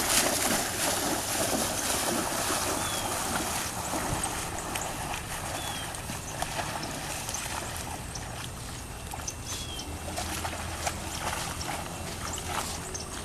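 A dog splashing and wading in water: a loud splash right at the start, then steady sloshing and splashing.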